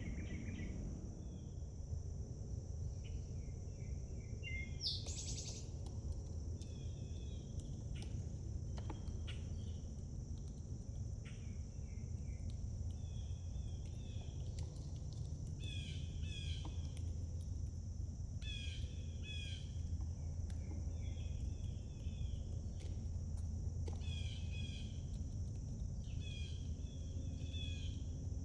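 Outdoor ambience: insects trilling steadily and high, with birds chirping in short repeated phrases, more often in the second half, and one quick rising whistle about five seconds in, over a steady low rumble.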